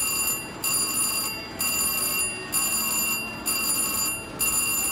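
Electronic bell tone from a VGT Mr. Money Bags slot machine, ringing over and over about once a second and stopping near the end.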